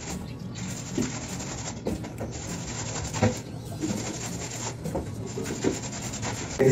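Paintbrush dragged over a rough plastered concrete wall, spreading sealer: a scratchy brushing hiss in about four long strokes of a second or so each.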